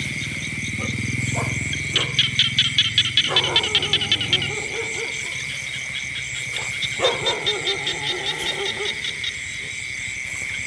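Night chorus of frogs and insects in a rice field: a steady high drone, with two runs of rapid pulsed frog calls at about eight a second, one about two seconds in and another about seven seconds in.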